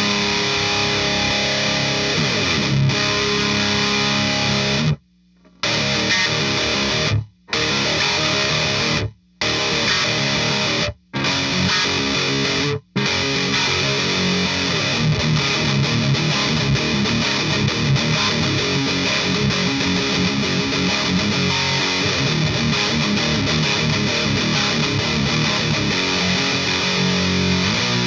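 Heavily distorted electric guitar played through a Rivera Knucklehead Reverb KR100 amp, a high-gain riff. In the first half it cuts off dead about five times, in short stops.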